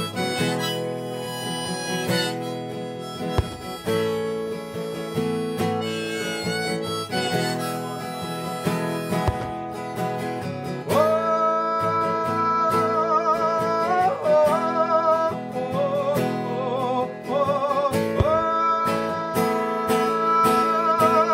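Acoustic guitar strummed in a steady rhythm under a harmonica melody, an instrumental passage without singing. About halfway through, the harmonica moves to long held notes with a wavering vibrato.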